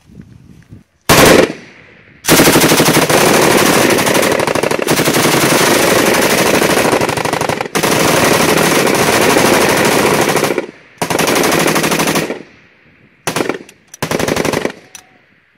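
Several FN Minimi 5.56 mm belt-fed light machine guns firing fully automatic. A short burst comes about a second in, then near-continuous fire for about eight seconds with two brief breaks. After that comes another burst of about a second, and two short bursts near the end.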